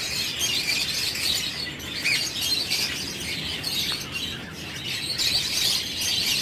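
Many caged parrots chirping and chattering together in a dense, continuous chorus.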